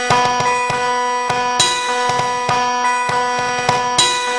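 Instrumental music: hand drums played in quick strokes over a steady held drone.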